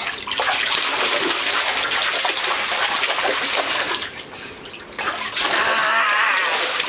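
Water splashing in a shallow inflatable kiddie pool as hands slap the surface and a Boston terrier wades through it. The splashing drops away briefly about four seconds in, then picks up again.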